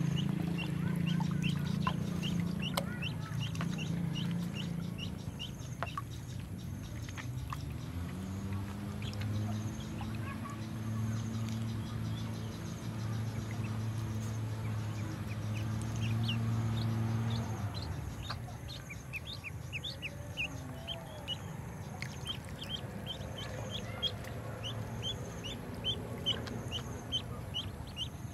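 Ducklings peeping: short, high, rising peeps, several a second, coming in runs with pauses between. Beneath them a low steady hum is loudest at the start; about eight seconds in it rises in pitch, holds for about ten seconds and then stops.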